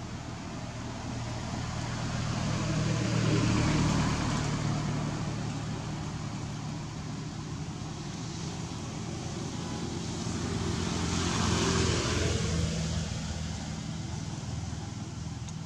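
Two motor vehicles passing by one after the other, each engine growing louder and then fading: the first passes about three or four seconds in, the second near twelve seconds in.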